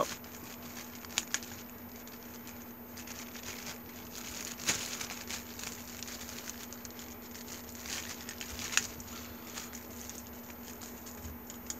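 Plastic bubble wrap crinkling and rustling softly as it is handled and pulled open, with a few sharp crackles. A steady low hum sits underneath.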